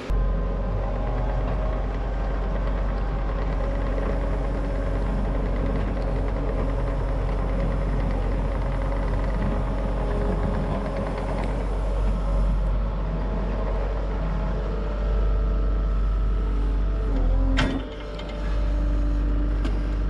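Compact track loader's diesel engine running steadily with a deep rumble as the machine works with its grapple. A single sharp knock comes near the end, followed by a brief dip in the engine sound.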